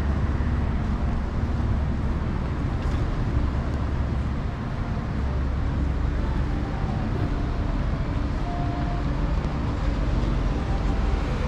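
Steady street traffic noise from the road along the promenade, a continuous low rumble with no distinct passes or horns.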